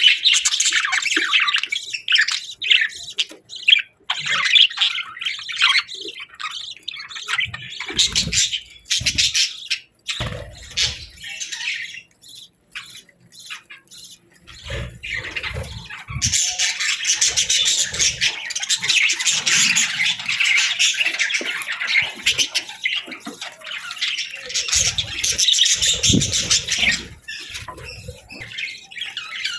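Budgerigars chattering, chirping and squawking in rapid, overlapping calls, with a few soft low thumps among them. The chatter thickens into a denser, continuous flock sound about halfway through.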